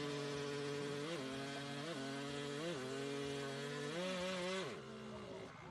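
Small motorbike engine idling, with the throttle blipped three times, then revved and held briefly before the revs fall away near the end.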